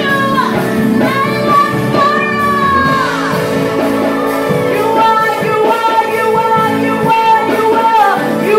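A woman belting a gospel worship song into a microphone, her voice rising and falling over steady held chords from an accompanying instrument.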